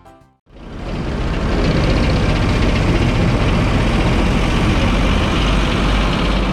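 Heavy construction-machine engine, a road roller's, running steadily with a deep rumble. It starts about half a second in.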